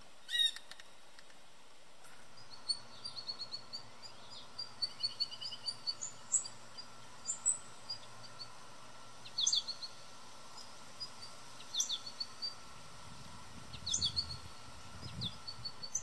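Small songbirds chirping: short high chirps, often in quick runs, with a few sharp falling calls spread through.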